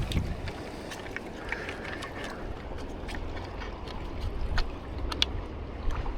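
Steady low rumble of wind and shallow water with scattered small clicks and trickles, as a fish is released under the water.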